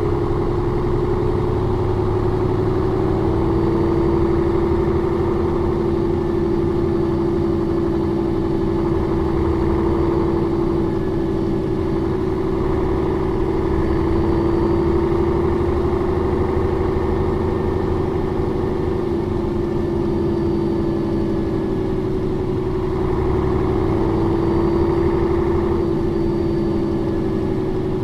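Mercedes-Benz O405 N2 city bus (1996) running, its engine sound steady with one strong hum. The level swells gently a few times.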